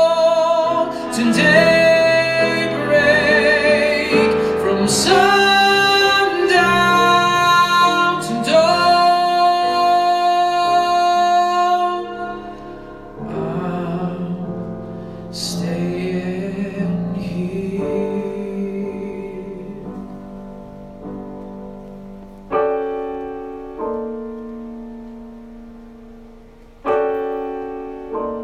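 A male singer holds a long final note with vibrato over piano accompaniment for about twelve seconds, then the piano plays on alone, closing the song with a few struck chords that ring out.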